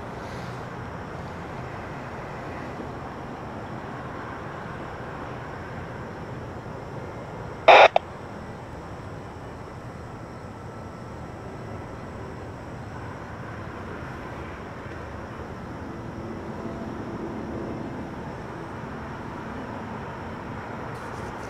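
Distant rumble of approaching diesel freight locomotives, steady and low. About eight seconds in, a loud sharp knock sounds twice in quick succession.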